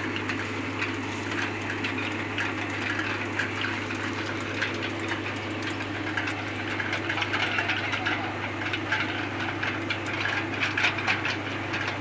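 Hydraulic excavator diesel engines running steadily while digging soil, with many short clicks and clatters over the engine hum.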